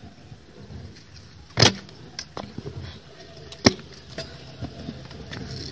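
Stunt scooter clattering on concrete: a loud clack with a brief ring about one and a half seconds in, a second sharp clack about two seconds later, and lighter knocks between, over the low rumble of wheels rolling.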